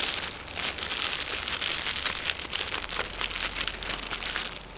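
Thin clear plastic bag crinkling in quick, irregular crackles as it is bunched by hand and cinched with a plastic cable tie.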